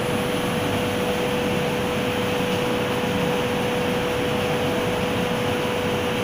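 MMC Truck Loader 8P-Mini belt conveyor running: a steady machine drone from its electric drive and belt, with a constant hum held at one pitch.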